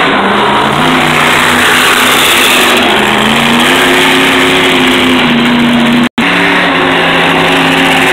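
Monster truck engine running hard as the truck drives across a dirt arena, loud, its pitch stepping up and holding as it accelerates. The sound cuts out for an instant about six seconds in.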